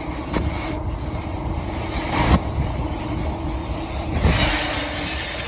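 A train running past with a low rumble and a steady hum, broken by a few sharp knocks about two seconds apart.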